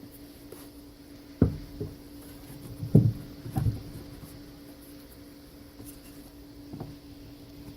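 A handful of dull wooden knocks as frame parts are handled and set in place, the loudest about three seconds in, over a steady low hum.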